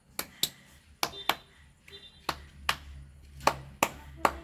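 A run of sharp, irregular taps, about two a second, with two brief faint squeaks in between.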